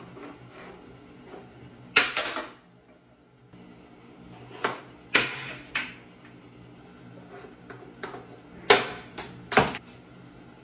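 Small plant pots knocked off a toilet ledge by a cat, clattering one after another on a tiled bathroom floor: about half a dozen sharp knocks, the loudest about two seconds in and near the end.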